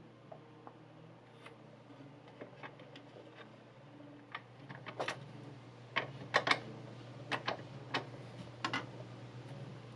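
Scattered light clicks and taps, as of a knife and sharpening block being handled on a hard surface, coming thicker and louder in the second half, over a steady low hum.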